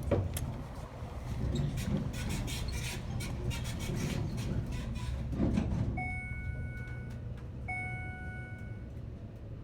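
Elevator car travelling with a steady low hum and a few light clicks, then its electronic chime sounds twice, two identical tones about a second long each.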